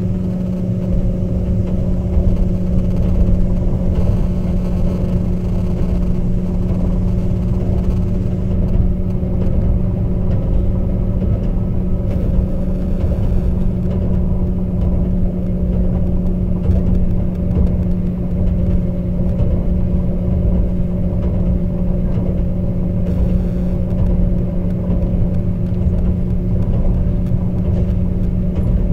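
Class 197 diesel multiple unit under way, its underfloor diesel engine holding a steady hum at constant speed over a continuous low rumble from the wheels and track.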